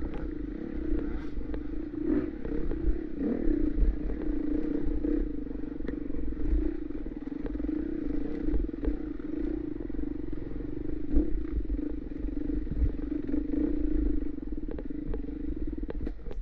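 Four-stroke single-cylinder dirt bike engine running at fairly steady revs while being ridden off-road, with scattered knocks and clatter over rough ground and a low wind rumble on the microphone.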